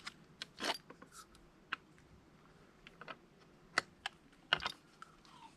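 Scattered light clicks and taps of hand tools and metal bike parts being handled during assembly, irregularly spaced, with a small cluster near the end.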